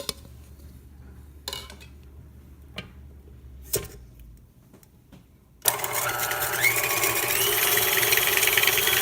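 A few light knocks, then an electric mixer switches on abruptly a little over halfway through and runs at high speed, its whine stepping up in pitch, beating egg yolks with sugar.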